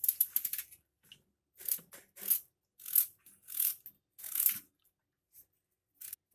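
Small kitchen knife slicing through raw peeled potatoes held in the hand, crisp cutting strokes: a quick run of them at the start, then single cuts about every two-thirds of a second, fading to a couple of faint ones near the end.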